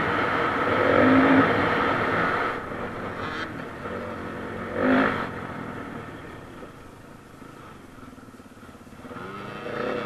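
Dirt bike engine ridden under throttle, heard from the rider's own bike. The revs surge briefly about five seconds in, then the engine drops to low revs as the bike slows, and it picks up again near the end.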